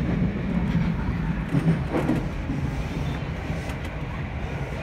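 Interior of an electric commuter train running slowly along a station platform: a steady low rumble of wheels on rail and running gear, with a few faint knocks, easing slightly as it goes.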